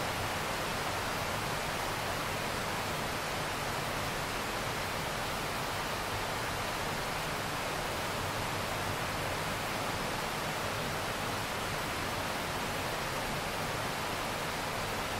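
Steady rain, a constant even hiss with no separate drops or thunder standing out.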